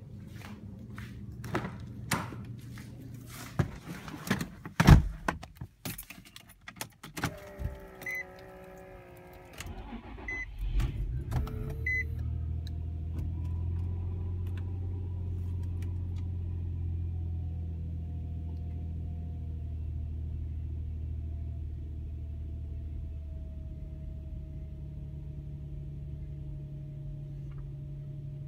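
Car door clicks, keys and a loud door thump, then a few beeps as the 2006 Infiniti FX35's 3.5-litre V6 is cranked and catches on a cold start at −2 °F. It settles into a steady fast cold idle, its pitch easing down slowly.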